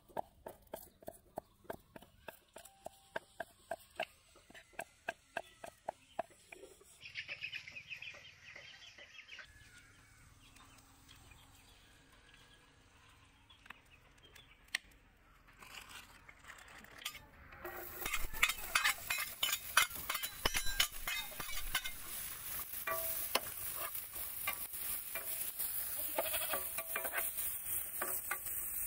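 A knife chopping garlic on a wooden chopping board, quick steady knocks for about six seconds. After a quiet stretch, chopped onion and garlic sizzle in hot oil in a non-stick frying pan while a metal spoon scrapes and stirs them.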